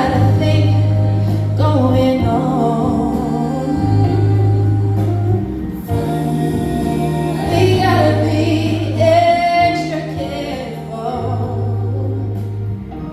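Live R&B band playing a slow soul ballad, with sustained wordless singing over held bass notes.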